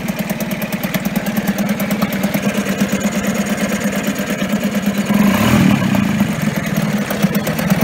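Yamaha 2B 2 hp single-cylinder two-stroke outboard running in a barrel of water on a test run after its water-pump impeller was replaced. It runs steadily at low throttle, then speeds up and gets louder about five seconds in as the throttle is opened.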